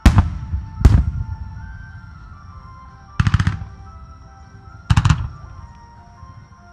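Starmine aerial fireworks bursting: two heavy booms at the start and just under a second later, then two quick volleys of crackling reports about three and five seconds in. Music plays faintly underneath.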